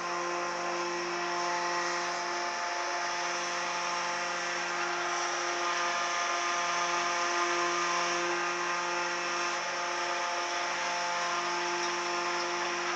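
Engine and hydraulics of a static HIAB Jonsered 2490 grapple crane running steadily: a constant hum with a clear pitch and no change in speed.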